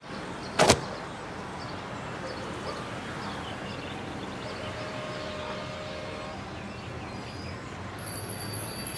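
A single sharp snap of a cotton towel being shaken out about half a second in. Then steady outdoor background noise with faint high chirps. A faint held tone runs briefly near the middle, and a thin high tone starts near the end.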